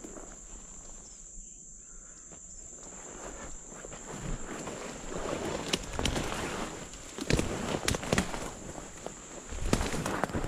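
Footsteps and rustling as a person pushes through tall, dense weeds, stems brushing and snapping against the body, growing louder from about four seconds in. A steady high-pitched insect drone runs underneath.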